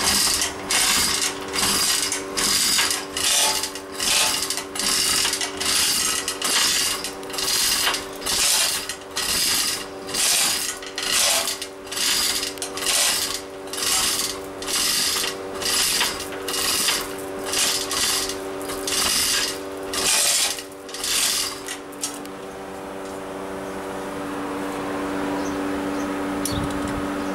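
Manual chain hoist being worked by hand, its hand chain pulled in a long run of rhythmic rattling strokes, about one every 0.7 s. The strokes stop a few seconds before the end, leaving a steady machine hum.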